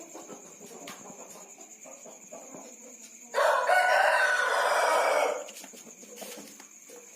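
A rooster crows once, a loud call of about two seconds near the middle, over faint clucking and a steady high-pitched buzz.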